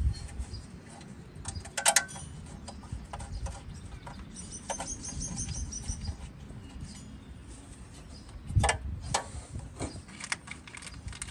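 Sharp metallic clinks and knocks from hand work at the timing-belt cover of a Ford 2.3 engine: one loud clink about two seconds in and two more near the end. A bird's rapid series of high chirps comes in the middle, over a low rumble of wind.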